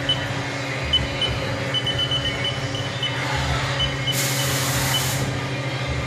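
Haas VF-1 CNC vertical mill running with its doors shut: a steady low hum, with a few faint, short high-pitched pips and a burst of hiss about four seconds in that lasts about a second.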